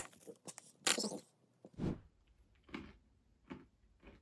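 A caramelised peanut bar in its foil wrapper being cut with a knife: a sharp click, then a brief crackly crunch and crinkle about a second in. A few quieter short crunches follow at roughly one-second intervals.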